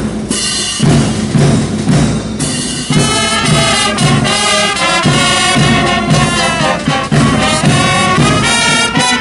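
Military brass band playing a march: trumpets and trombones over a steady drum beat of about two strokes a second, the brass growing fuller about three seconds in.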